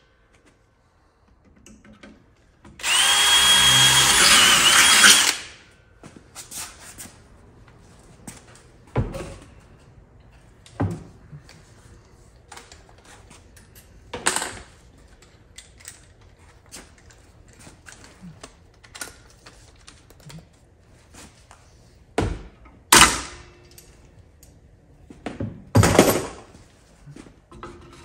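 Cordless drill running for about two and a half seconds, starting about three seconds in, with a steady high whine as it bores a rivet hole through a part clamped in a bench vise. After that come scattered clicks and a few sharp knocks of the part and tools being handled; the loudest knocks fall near the end.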